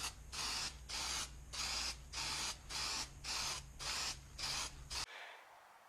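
Hand sanding of body filler on a Jeep TJ's patched body panel: quick back-and-forth strokes, about three a second, over a low electrical hum. The strokes stop about five seconds in and give way to near silence.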